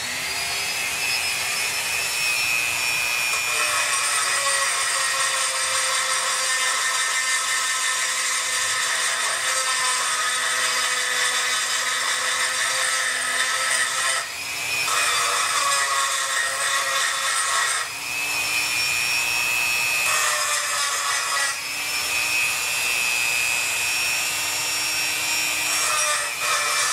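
Dremel 4000 rotary tool with a carbide porting bit, grinding and smoothing the intake port of a Chinese 80cc (PK80) bicycle engine cylinder. It makes a steady high whine whose pitch shifts with load, dipping briefly a few times as the bit is eased off and put back to the metal.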